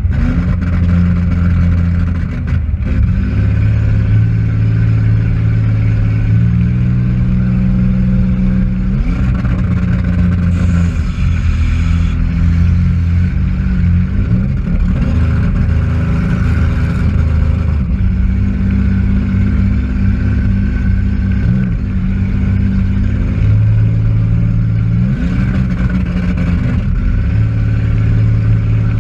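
Demolition derby car's engine running loud, heard from inside the car. Its pitch shifts up and down as the throttle changes, with several short rising revs.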